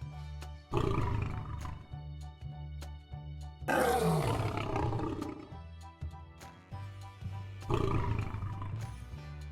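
Lion roaring three times, each roar lasting a second or two, the middle one the loudest, over background music.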